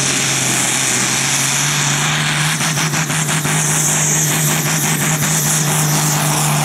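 Diesel engine of a sport-class pulling tractor running flat out under load as it drags the weight-transfer sled, a loud steady drone that holds one pitch. A stretch of rapid crackles comes through the middle.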